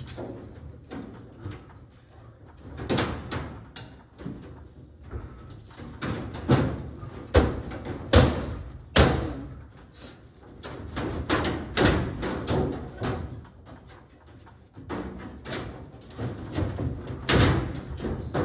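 Sheet-metal ductwork being fitted and reconnected overhead: irregular metallic bangs, clunks and rattles as the duct pieces are pushed and knocked into place, with a run of louder bangs in the middle and near the end.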